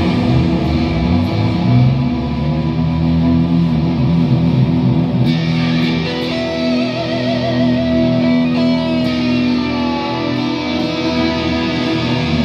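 A live rock band playing electric guitars over bass guitar. A held, wavering note comes in about six seconds in.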